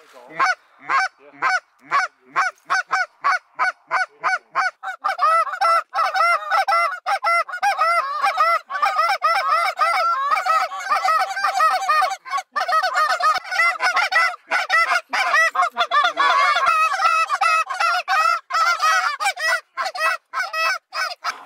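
Goose calling: a run of separate honks and clucks, about three a second, then from about five seconds in a dense, overlapping chorus of goose honks and clucks, at least partly from a hunter's short-reed goose call.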